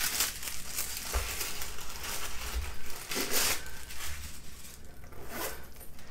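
Crumpled packing paper crinkling and crackling as it is pulled out of a small leather purse and handled, in several bursts, the loudest just past halfway.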